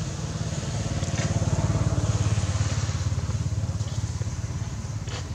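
An engine running with a low, fast pulsing rumble, growing louder toward the middle and fading again, like a motor vehicle passing.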